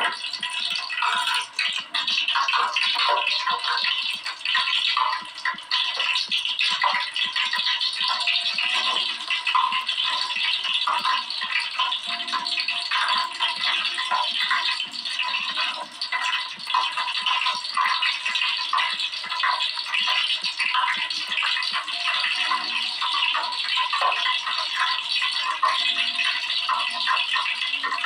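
Hot cooking oil sizzling and crackling in a pan: a dense, steady spatter of tiny pops.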